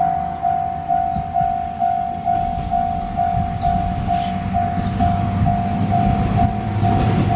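Japanese level-crossing warning bell ringing, a steady electronic ding about twice a second. Under it an approaching diesel railcar rumbles, its engine growing louder near the end.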